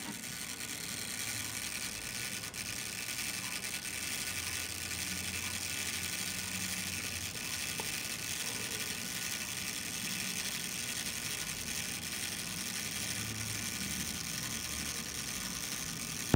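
The self-timer of a Prontor-S leaf shutter on a Belfoca folding camera running down with a steady mechanical whir. It cuts off abruptly at the end.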